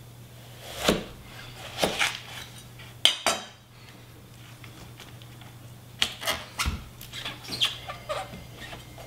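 A chef's knife cutting into a raw cauliflower head on a wooden cutting board: a few crunching cuts and knocks in the first three seconds, ending in a sharp clack as the knife is set down on the board. From about six seconds in, softer crackles and taps as the cauliflower is handled and turned on the board.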